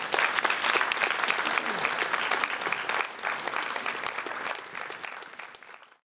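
Audience applauding. The clapping thins out over the last few seconds, then cuts off suddenly near the end.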